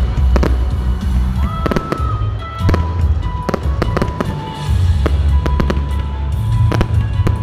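Fireworks bursting in a string of sharp bangs, over loud music with a heavy bass.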